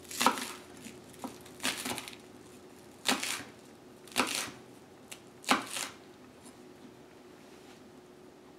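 Kitchen knife slicing scallions on a wooden cutting board: five separate cuts, each a short crisp chop about a second or so apart, stopping about six seconds in.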